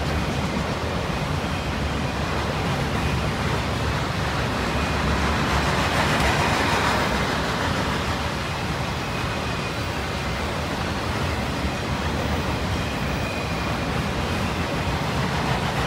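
Freight train autorack cars and then flatcars rolling past, a steady rumble and rush of steel wheels on rail that swells briefly about six seconds in.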